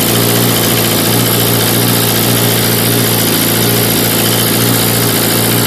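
2008 Suzuki GSX-R 1000 inline-four engine idling steadily.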